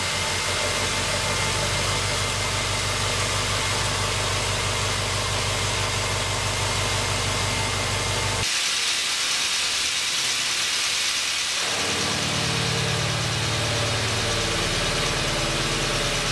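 Hwacheon VESTA-1300B vertical machining center milling a metal block at full spindle load. A 160 mm face mill at 367 rpm cuts with a steady, rapid rhythmic chatter of its inserts. About eight seconds in, the sound changes to a 40 mm end mill at 1,000 rpm taking a deep full-width cut, with a higher-pitched cutting noise.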